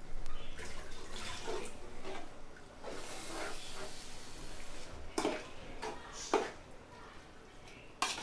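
Raw prawns being stirred into a hot, wet onion-tomato masala with a slotted metal spoon in a large metal pot: a wet sizzle and squelch for the first few seconds, then a few sharp scrapes and knocks of the spoon against the pot.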